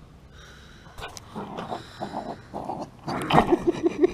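Poodle close to the microphone: light rustling and clicks, then about three seconds in a louder huff followed by a run of short, evenly spaced grunts, around five a second.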